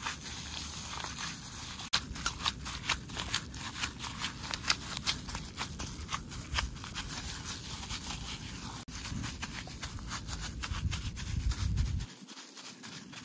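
Wet squelching and crinkling of a plastic-gloved hand kneading a soft mash of crushed flatbread and buttermilk in a glass bowl, a quick run of sharp crackles from about two seconds in.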